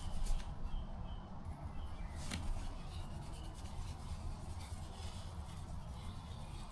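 Low rubbing and handling noises as grease is worked onto the chisel bit of a chipping hammer, with one light click about two seconds in; the hammer is not running.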